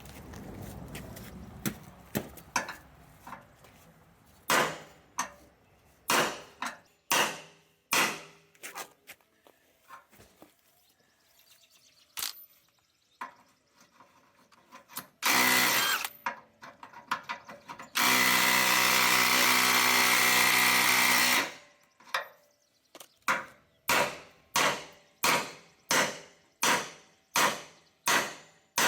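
Hammer blows on the truck's metal parts during disassembly, irregular at first, with a power tool run briefly about halfway and then for about three and a half seconds. Near the end the hammering settles into steady blows about one and a half per second.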